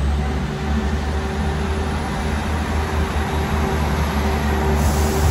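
Class 158 diesel multiple unit running into the platform, its diesel engines giving a steady low rumble with a steady hum over it. A brief hiss comes near the end.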